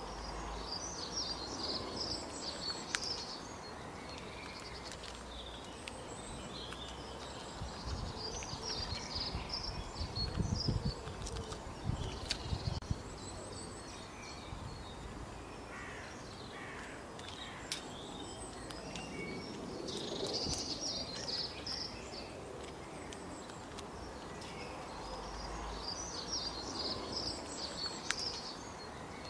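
Outdoor ambience with small birds chirping and singing in the background, in short repeated phrases. There are a few low rumbles about ten to thirteen seconds in.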